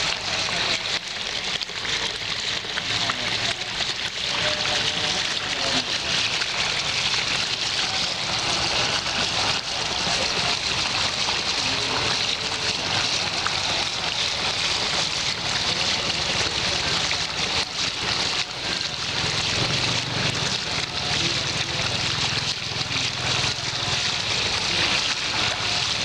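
Water from a small handmade model waterfall splashing steadily onto rock close to the microphone, a continuous hiss of falling water with a faint low hum underneath.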